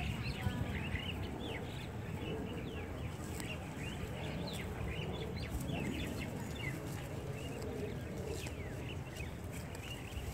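Many birds chirping in short, quick calls all through, over a low steady rumble.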